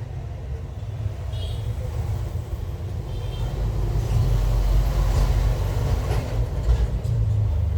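Audio played through a newly replaced Dell laptop speaker as a test: a steady low rumble with noise above it, which grows louder about four seconds in.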